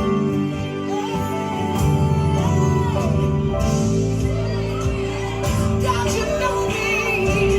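A gospel song playing: a singer's voice carrying a melody over a band, with a held bass note and a steady beat.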